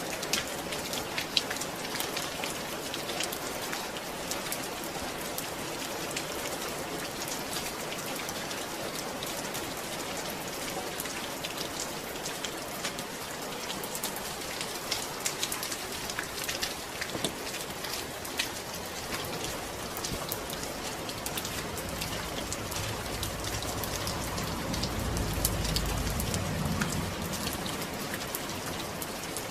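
Steady rain falling, its even hiss dotted with many sharp individual drop ticks. About three-quarters of the way through, a deep low rumble swells up and fades again.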